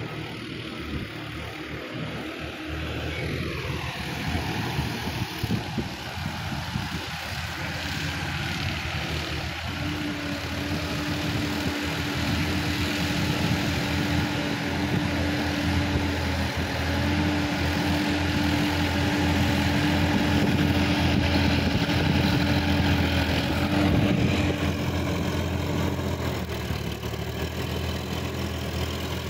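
Sonalika DI-50 RX tractor's diesel engine running under load as it works through a flooded paddy field, with a steady droning tone over its running; it grows louder toward the latter half, then eases slightly near the end.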